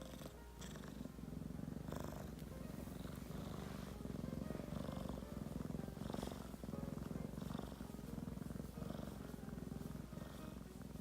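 Kitten purring steadily, a fast low rumble that swells and eases every second or two with its breathing.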